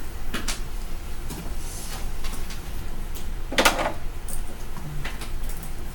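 Classroom room noise: scattered light knocks and clicks, with one louder short noisy burst about three and a half seconds in, over a steady low hum.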